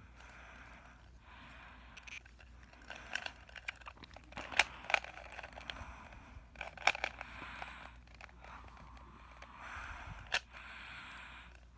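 Plastic 3x3 speed cube being turned by hand mid-solve: runs of quick clicking and scraping layer turns, with a few sharper clacks around the middle and near the end.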